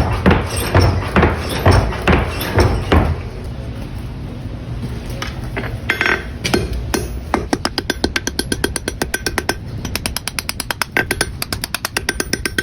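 Hand hammer striking hot steel flat stock on an anvil, rounding off its corners. A run of heavy blows comes first; after a short lull, a fast, even run of lighter ringing blows follows, about four or five a second.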